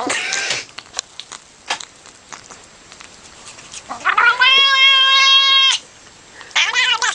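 Domestic cat meowing: a short rough call at the start, then a long drawn-out meow about four seconds in that rises and then holds steady for nearly two seconds, and another call begins near the end. Small handling clicks fall in the quiet gap between the calls.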